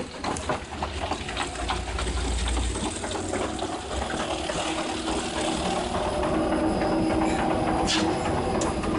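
Veneer splicer running: a steady machine hum, with light clicking in the first few seconds and a hum tone that grows stronger about halfway through.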